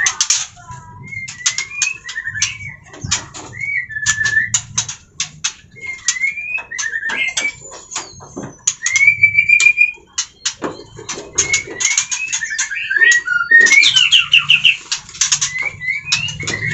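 Parent white-rumped shama (murai batu) calling over and over in alarm as its chicks are about to be taken from the nest box: short rising-and-falling whistled notes among sharp clicks, with a quick run of repeated notes about fourteen seconds in.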